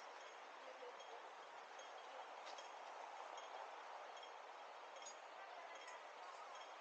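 Faint street hubbub with a pedestrian crossing's audible signal beeping slowly and evenly, a short high beep about every three-quarters of a second.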